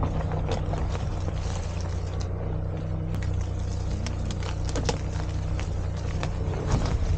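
Daihatsu Atrai kei van's 660cc turbocharged engine running steadily at low speed on a dirt trail, with scattered clicks and crackles from the tyres rolling over dry leaves and twigs.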